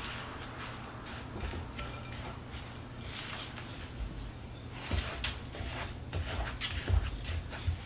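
Kitchen utensils and dishes being handled while preparing food: a string of light knocks and clinks, sparse at first and coming more often and louder in the second half.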